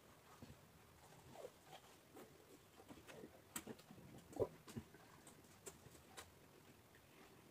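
Faint eating sounds: mouth-close chewing of raw vegetables, with scattered small clicks and crunches. Fingers work rice on a steel plate, and the sharpest clicks come about three and a half and four and a half seconds in.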